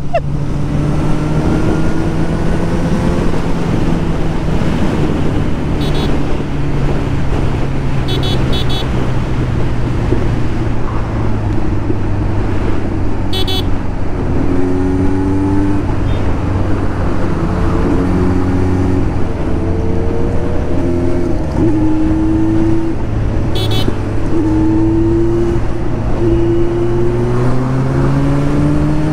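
Kawasaki Z900's inline-four engine with an aftermarket performance exhaust running on the move under a heavy haze of wind and road noise. Its note sinks slowly as the bike slows over the first half, then climbs again near the end as it accelerates.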